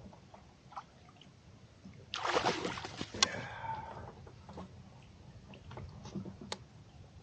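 Water splashing and sloshing beside a kayak as a hooked bass is brought in, loudest for about a second starting two seconds in, with a sharp knock right after and a few light clicks later.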